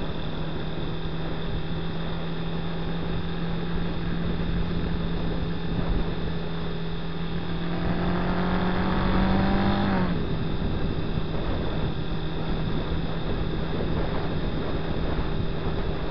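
Honda Twister 250's single-cylinder engine running at steady cruising revs, with wind and road noise. About eight seconds in the revs climb for a couple of seconds, then fall away suddenly near ten seconds and settle back to a steady cruise.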